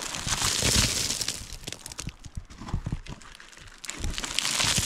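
Loose, flaky rock being pried and pulled from a fractured rock face by hand: crumbling and scraping with small pieces clicking and clattering down. It comes in two bouts, one in the first second or so and one near the end.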